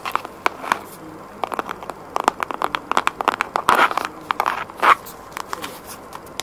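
Long fingernails tapping and scratching on a cardboard eyeshadow palette held close to the microphone: a run of sharp, irregular clicks, with two louder rustling scrapes about four and five seconds in.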